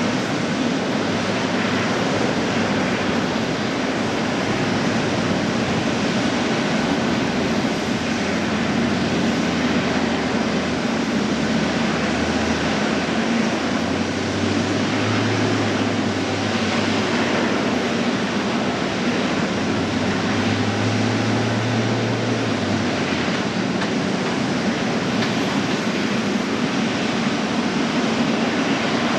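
Jet airliner engines running at taxi power: a steady rushing noise with no pauses. A low hum swells and fades a couple of times in the middle.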